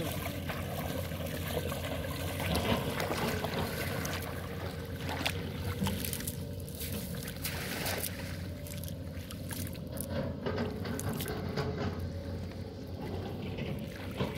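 Water trickling and dripping from a wet cast net as it is pulled in and gathered up in shallow water, with occasional small splashes.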